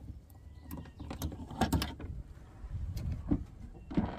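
Brass padlock being unlocked and taken off a metal door hasp, a series of sharp metallic clicks and clinks, then the shed door being pulled open.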